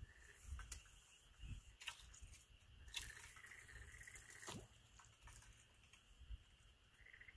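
Near silence at a waterside at night: a faint chorus of night-calling animals pulses steadily, with a few soft clicks.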